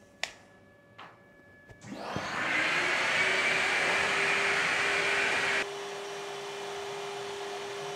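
A few light clicks, then a CNC router's spindle and dust extractor spin up at the start of a cut: a loud rushing that builds over about a second, with a steady tone. About three and a half seconds later the rushing drops off abruptly, leaving a quieter hum under the same steady tone.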